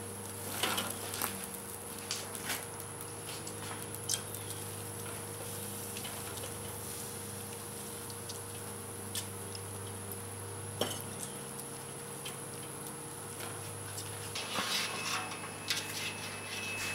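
Quiet handling sounds at a charcoal kettle grill: a smoked pork butt turned over on the metal grate and dabbed with a vinegar sauce mop, with scattered light clicks and taps over a steady low hum.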